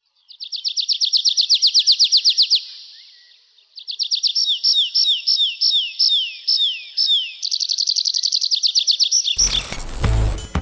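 Nightingale singing. First comes a fast rattle of repeated notes that fades out, then a phrase of slower notes slurring downward, then another rapid trill. About nine seconds in, loud music with a heavy bass beat cuts in.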